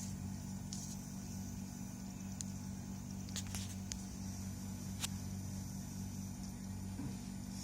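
Steady low hum with a few short clicks and ticks scattered through it.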